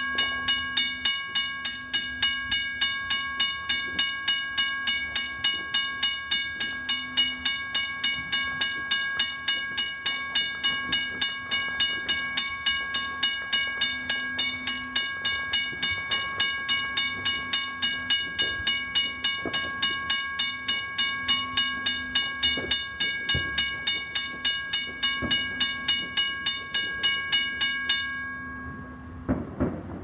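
Railroad crossing bell ringing in rapid, evenly spaced strikes. The strikes stop about two seconds before the end and the last stroke rings out.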